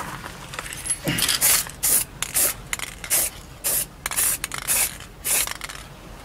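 Aerosol spray-paint can spraying in short hissing bursts, about one to two a second, as a coat of paint goes onto a brake disc.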